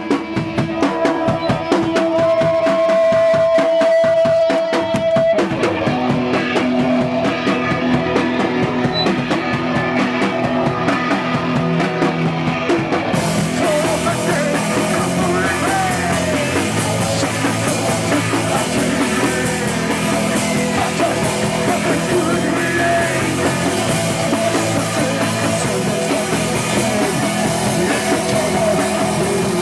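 Live rock band playing with drum kit and electric guitar. A single note is held for a few seconds near the start, then the full band comes in about five seconds in and plays on loud and dense.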